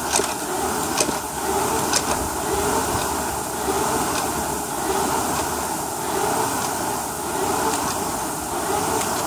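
Concept2 indoor rower's fan flywheel whirring at a full-effort sprint, a steady rush that swells with each stroke. A few sharp clicks come in the first two seconds.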